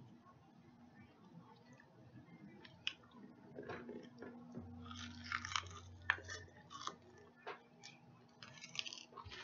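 Faint chewing and crunching of a bite of deep-fried chicken: scattered small crackles and clicks, busiest about five seconds in.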